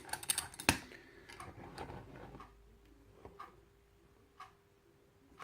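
Small sharp clicks and taps of lock-picking tools and a steel padlock being handled, the loudest click a little under a second in, followed by a few sparse faint ticks.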